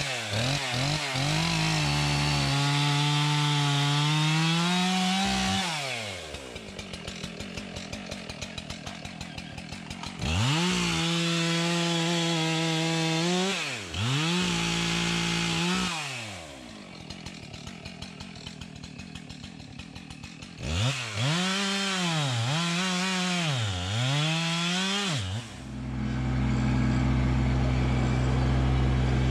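A two-stroke chainsaw bucking logs: it runs at full throttle through the cuts and drops back to idle between them, with a run of quick revs near the end. About four seconds before the end, it gives way to the steady running of a Kubota LX2610 compact tractor's diesel engine.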